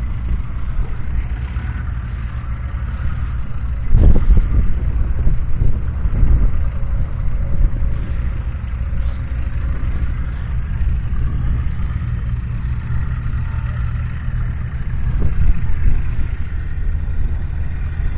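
Ford 6.2-litre six-cylinder diesel engine of a Roadless Ploughmaster 90 tractor running steadily, heard close to the engine bay. Loud low buffeting on the microphone about four seconds in.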